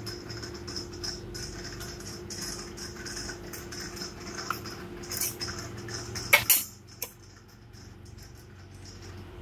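Steady hum and hiss of running aquarium equipment, broken about six seconds in by two loud knocks and a smaller click, after which the hiss drops away.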